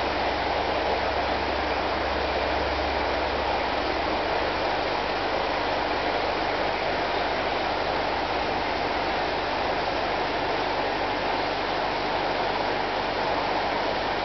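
Steady rushing and bubbling of tank aeration, air streaming up through a sponge filter into the water, with a low hum underneath that drops away about four seconds in.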